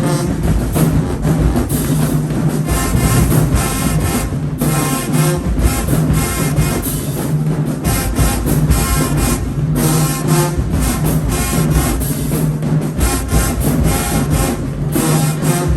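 High school marching band playing loudly: brass section over drumline with a steady, driving beat.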